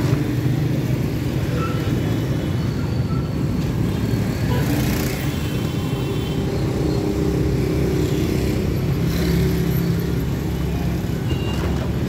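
Motorcycle engine running steadily while riding in dense city traffic, with cars and other motorcycles close around. A few short high beeps come through, near the start and again near the end.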